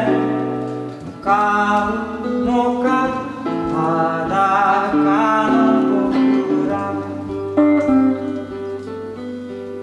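Solo song on a hollow-body archtop guitar, chords and melody notes plucked in a slow, gentle passage, with a deep bass note held through the last few seconds. A man's voice sings along over the guitar in places.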